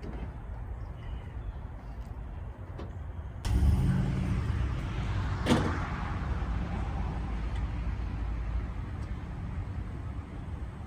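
Load of poplar logs sliding and tumbling off a hydraulic dump trailer over a steady low engine rumble. The load lets go suddenly a few seconds in, with a sharp bang about two seconds later, then rumbles on as it settles.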